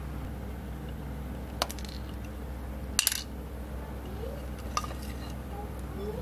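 A few light metallic clicks from a thin metal rod and small tools being handled against a wooden block: one about a second and a half in, a louder double click near the middle, and a lighter one about five seconds in, over a steady low hum.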